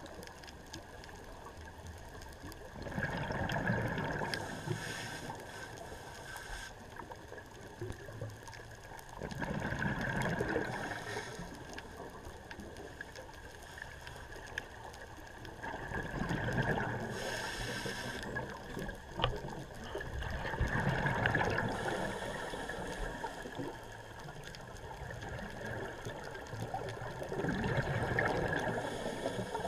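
Scuba diver breathing through a regulator underwater: a burst of exhaled bubbles every five to seven seconds, five in all, each lasting two to three seconds, with a steady underwater hiss between.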